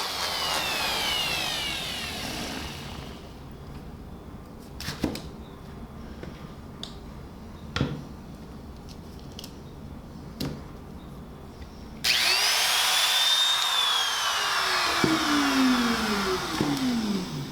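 A small corded handheld power tool's motor. It winds down over the first few seconds, then a few clicks and knocks of handling follow. About twelve seconds in it switches on abruptly, runs briefly, and its pitch falls as it coasts to a stop near the end.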